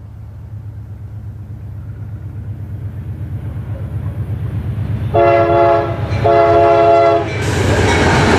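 Amtrak P42 diesel locomotive approaching, its engine rumble growing louder, then sounding its horn in two blasts of about a second each, a chord of several notes. The train then passes close by with a loud rush of wheel and engine noise.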